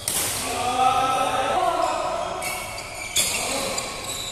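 Badminton rally: sharp racket hits on the shuttlecock, the strongest about three seconds in, with wavering pitched sounds between the hits.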